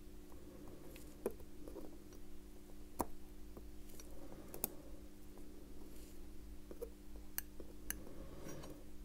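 Scattered sharp little clicks of a steel tool against the small metal parts of a Bulova 218 watch movement as the yoke spring is worked at, over a faint steady hum.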